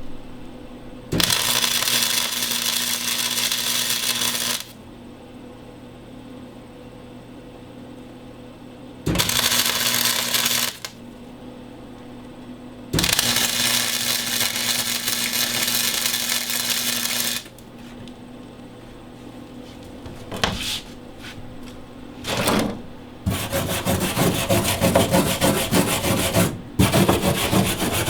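Arc welder crackling in bursts of two to four seconds as steel patch plates are tack- and stitch-welded into a rusted bus floor, with a steady low hum in the pauses between welds. The last bursts near the end run almost without a break.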